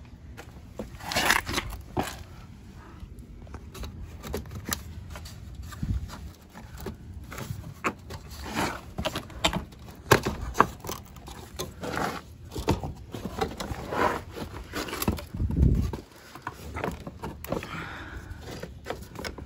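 Plastic bumper cover and grille tabs being worked loose by hand: irregular scraping, creaking and clicking, with a few sharper snaps as the lower mesh grille is pried out of a 5th-gen Camaro's front bumper.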